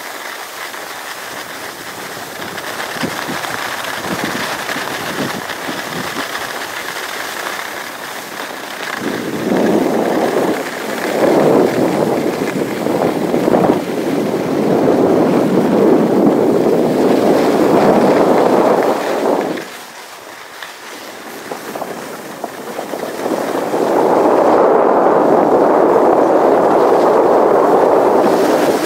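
Rushing noise of skiing downhill with a handheld camera: wind across the microphone and skis sliding over the snow. It grows much louder about nine seconds in, drops briefly just after twenty seconds, and swells again for the last few seconds.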